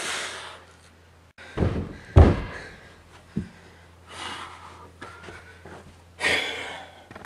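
Two heavy, deep thuds about half a second apart, a dumbbell set down hard on the floor after a set of presses. A smaller knock follows, with a few short swishing noises around them.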